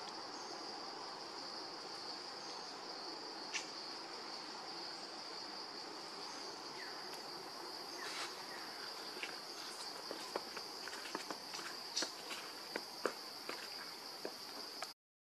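Steady high-pitched drone of insects, with scattered light clicks and taps that come more often in the second half.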